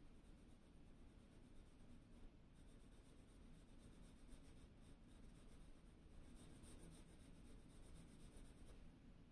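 Faint, rapid short strokes of a graphite pencil scratching on smooth Bristol paper, pausing briefly about two seconds in and again near the end.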